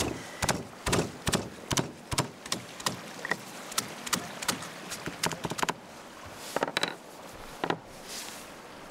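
Wooden pestle pounding juniper twigs, fresh thyme, lemon and garlic in a wooden mortar: a run of irregular knocks, about two or three a second, that stops a little before the end.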